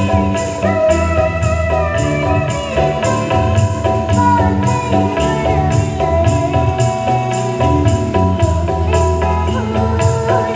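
Live stage band music played through a PA system, with a steady percussion beat under held melodic tones.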